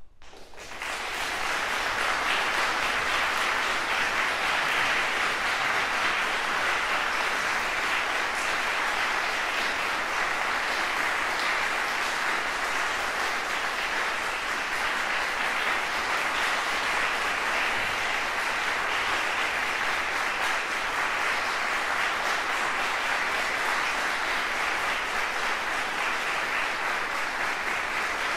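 Concert audience applauding, breaking out right as the music ends and then holding steady and dense.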